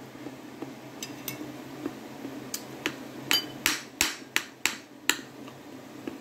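A metal spoon clinking against a plate as food is scooped up: about a dozen sharp clinks, sparse at first, then quicker and louder from about halfway through.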